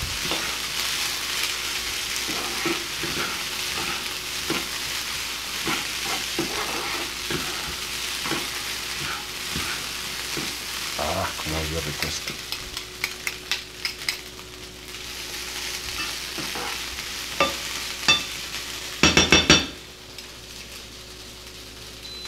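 Rice, chicken and vegetables sizzling in a frying pan while being stirred and turned with a utensil, with small scrapes and taps against the pan. The sizzle thins out partway through, and there is a louder clatter near the end.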